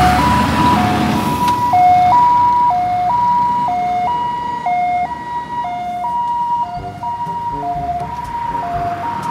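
Ambulance two-tone siren sounding a steady hi-lo pattern, switching between a high note and a lower note about once a second, over the rumble of passing traffic that is loudest in the first second or so.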